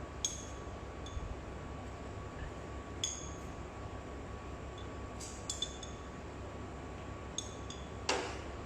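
Utensils clinking against dishes while food is plated: about eight light, ringing clinks spread out, the loudest near the end, over a steady low hum.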